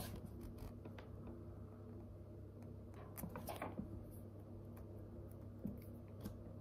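Faint rustling and a few light clicks of hands handling a small packet, the clearest about three and a half seconds in, over a steady low hum.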